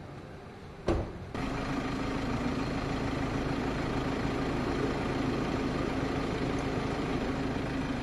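A steady mechanical hum with a held low droning tone, like an engine or machine running, which starts just after a sharp click about a second in and cuts off suddenly at the end.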